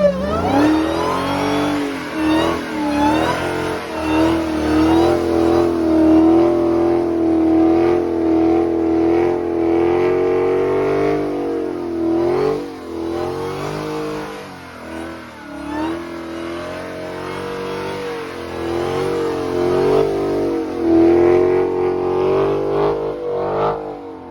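Supercharged 6.2-litre Hemi V8 of a Dodge Charger Hellcat, breathing through a Legmaker carbon fiber cold air intake, running and revving, its pitch rising and falling repeatedly. A thin rising supercharger whine rides over the engine in the first few seconds.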